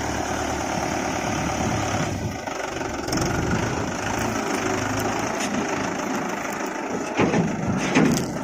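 Diesel engine of a working machine running steadily, with two short loud knocks near the end.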